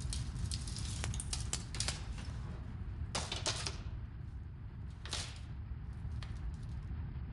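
Earthquake rumble sound effect: a steady deep rumble with scattered crackles and rattles over it, thickest in the first two seconds and again about three and five seconds in.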